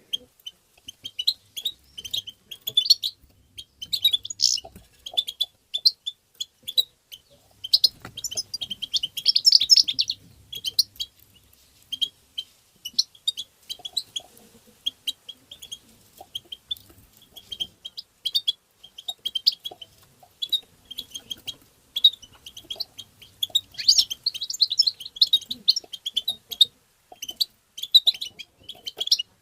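European goldfinch calling and twittering: a steady run of quick, high chirps, with denser bursts of twittering song about eight seconds in and again near the end.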